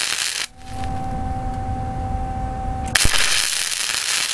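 Lincoln wire-feed welder burning flux-core wire in tack welds: the arc crackles and spits, stops about half a second in, leaving a steady hum, then strikes again about three seconds in and keeps crackling.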